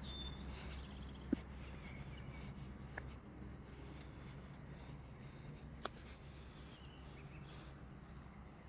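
Faint footsteps walking across grass and gravel, a soft scratchy rustle with a few sharp clicks, over a steady low hum.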